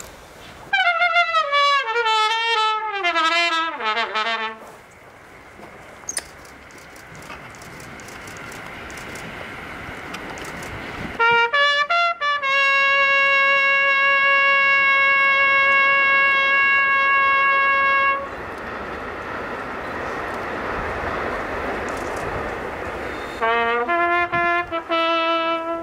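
Solo trumpet improvising slowly, with quiet stretches between phrases. First comes a wavering run of notes falling from high to low. After that come a few short notes and one long held note of about six seconds, and near the end a quick fluttering figure.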